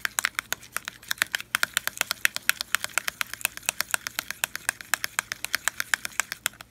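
Thick hand-soap slime worked between the fingers, making rapid sticky clicks and pops, about eight to ten a second, with a brief pause about a second and a half in.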